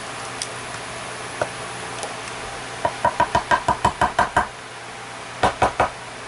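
Rapid sharp taps on a Master Lock 150 padlock, about ten in a second and a half and then three more, as it is knocked to work the plug and pins loose during disassembly.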